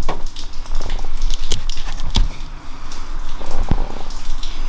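Cloth harness tape being picked at and torn off a bundle of car wires: a run of scratchy crackling with irregular sharp clicks.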